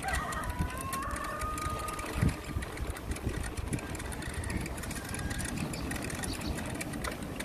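Folding bike rolling along a concrete lane: a low rumble of tyres and wind, with the rear freewheel ticking rapidly as it coasts. A short gliding squeal sounds in the first two seconds.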